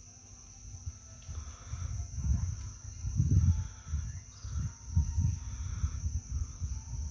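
A steady high buzz of insects droning throughout, with irregular low rumbling on the phone's microphone that starts about two seconds in and is the loudest thing heard.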